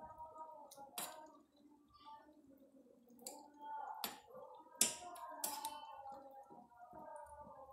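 Metal spoon clinking and scraping against a stainless steel pot while stirring a thick sauce, with several sharp clinks, the loudest about five seconds in. A voice or music runs faintly in the background.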